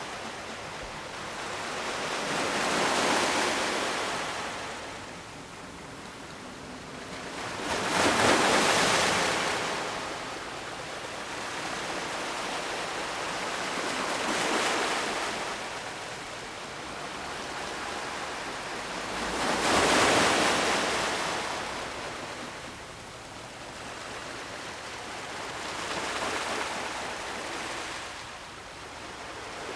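Ocean waves breaking and washing up on the shore, the surf swelling and fading every five or six seconds, with two larger waves about a third and two thirds of the way through.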